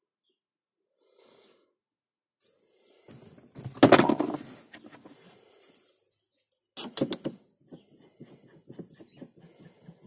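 Handling noise from a metal gear knob and its plastic adapter being moved about by hand at the gear lever. A loud cluster of knocks and clicks comes about four seconds in, a shorter clatter about seven seconds in, then a run of light ticks.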